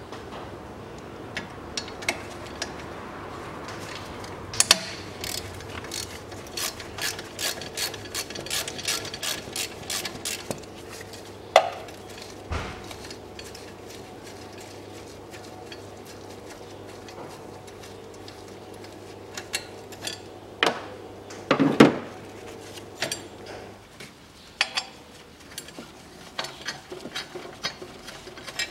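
Hand ratchet wrench clicking in quick runs as bolts are worked loose, followed by several separate sharp knocks of tools and parts, the loudest about two-thirds of the way through.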